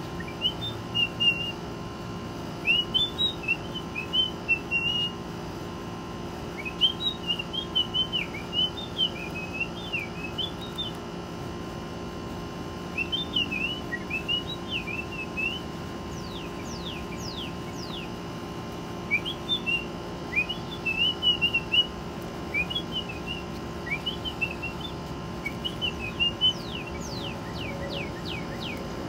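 A person whistling short warbling phrases to a northern cardinal. Twice, about halfway through and again near the end, comes a quick series of steep falling whistles.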